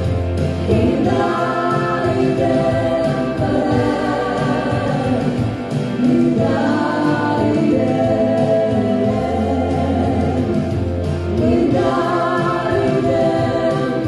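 Choir singing long held chords, with a low bass note underneath that drops out for a few seconds early on and returns.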